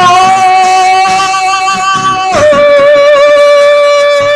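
Song cover: a singer holds a long, steady note that steps down to a lower held note about halfway through, over acoustic guitar.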